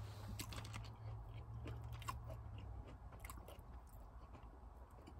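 Faint close-up chewing of a fried mozzarella stick, with small wet clicks and soft crunches from the mouth. A low steady hum runs underneath and drops away about halfway through.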